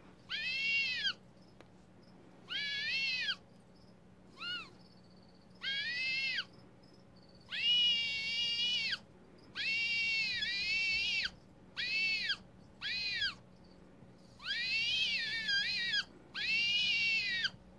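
Eurasian eagle-owl giving about ten high-pitched calls, each rising and then falling in pitch, with short pauses between them.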